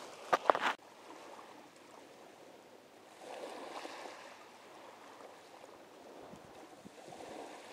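Steady rushing of river water, swelling a little about halfway through. A few sharp knocks sound in the first second, then cut off suddenly.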